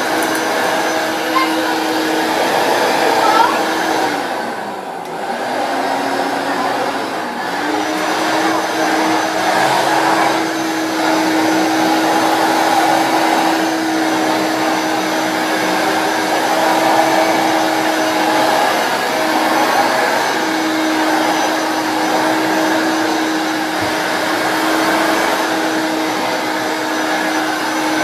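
1991 Hoover Turbopower 1 Freedom upright vacuum cleaner running steadily while being pushed over a carpet mat. The motor's steady tone sags and wavers for a few seconds about four seconds in, then recovers, with a brief dip again around twenty seconds.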